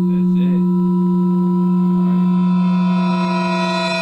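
A loud, steady low electronic tone with overtones, getting brighter toward the end as the higher overtones swell, then cutting off abruptly.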